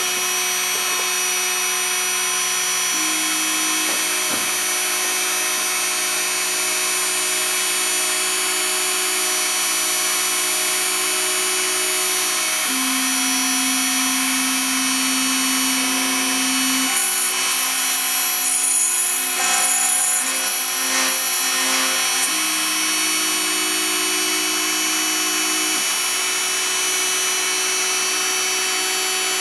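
Homemade CNC machine milling a Lego 2x2 brick: the high-speed rotary tool spindle whines steadily as its bit cuts the plastic, over lower steady tones from the stepper motors that shift in pitch every few seconds as the axes change speed. A little past the middle the cutting turns louder and rougher for about five seconds.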